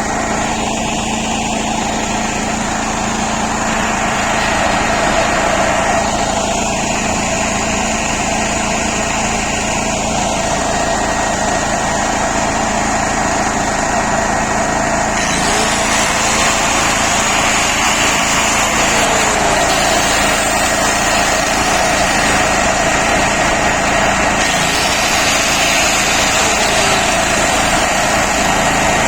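Spets SB6500E2 petrol generator running steadily under the load of an electric angle grinder, with the grinder's motor whine over the engine. From about halfway through, a brighter, hissier sound is added.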